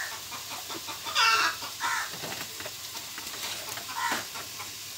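Domestic chicken clucking in a few short calls, the loudest just over a second in.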